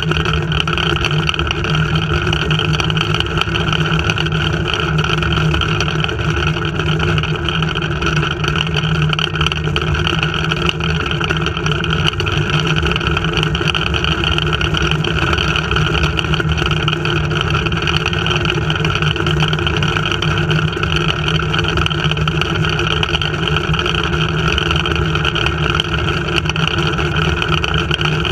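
Steady rushing wind on the rig-mounted camera's microphone, mixed with the unbroken hum of the flying-fox trolley's pulleys running along its steel cable while the riders glide at speed.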